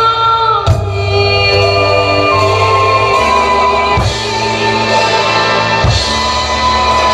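Recorded Korean trot song with a sung vocal line over sustained backing, and a drum kit played along with a few single accented hits about a second, four seconds and six seconds in.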